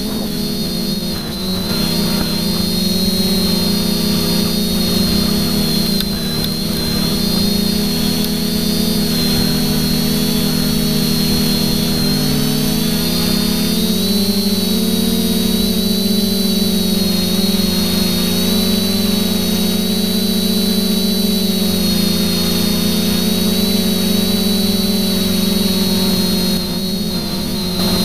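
TBS Discovery quadcopter's electric motors and propellers whirring steadily, heard from its onboard camera, the pitch dipping and shifting slightly about halfway through as the throttle changes.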